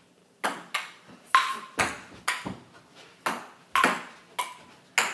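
Table tennis rally: the celluloid ball clicking off the paddles and bouncing on the table, about a dozen sharp clicks at roughly two a second, some with a short ringing ping.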